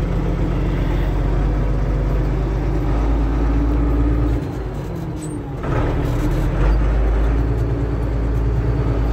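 Tractor engine running steadily as the tractor drives along. About four and a half seconds in it briefly drops in level for about a second, then picks back up.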